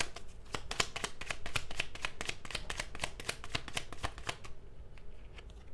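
A deck of cards being shuffled by hand: a fast run of crisp card-on-card clicks that stops about four and a half seconds in.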